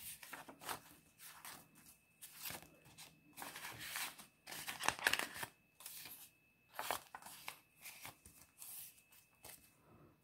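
Paper banknotes and clear plastic binder envelopes rustling and crinkling as bills are handled and slipped in and out of the pockets, in short irregular bursts that are loudest about four to five seconds in.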